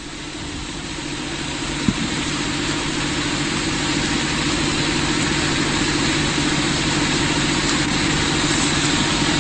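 A steady low, engine-like hum under a constant hiss, growing slowly louder, with a single click about two seconds in.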